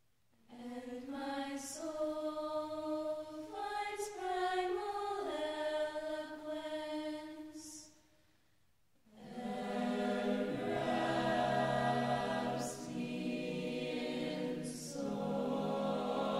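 Choir singing as a soundtrack: long held notes that move in steps from one chord to the next. It pauses briefly about eight seconds in, then comes back fuller.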